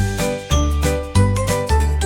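Background music: a bright, rhythmic tune of plucked or chiming notes over a regular bass beat.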